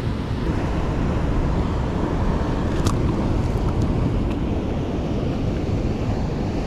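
Steady wind noise on the microphone over the rush of rough surf, with a single light click about halfway through.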